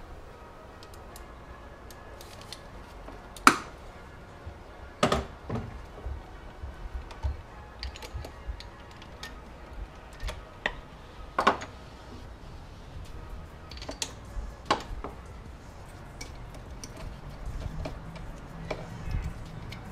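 Hand tools clicking and clanking on the engine during spark plug work: a ratchet and extension being handled and set down. Scattered light clicks with a handful of sharper metal knocks spread through.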